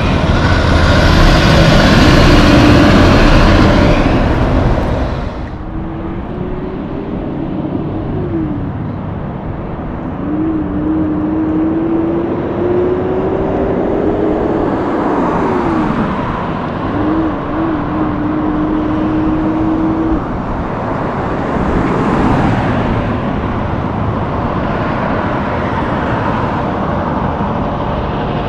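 A Western Star semi truck passes close by with loud engine and tyre noise that cuts off suddenly about five seconds in. Then steady traffic noise, with a heavy truck engine climbing slowly in pitch and dropping sharply at each gear change, twice.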